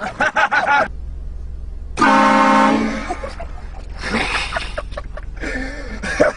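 A car-mounted train horn blasts once about two seconds in: a loud, steady chord of several tones lasting about a second.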